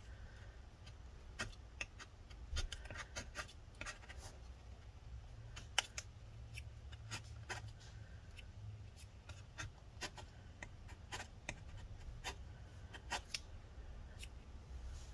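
A thin flat metal spatula scraping leftover battery adhesive off the inside of a MacBook Pro case. It makes irregular short scratches and sharp clicks, a few to several a second.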